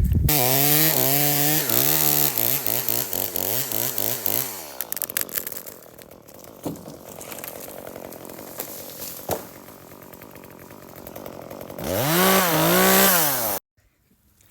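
Two-stroke chainsaw cutting into wood, its engine pitch wavering under load, then running much quieter for several seconds before revving up again near the end and cutting off abruptly.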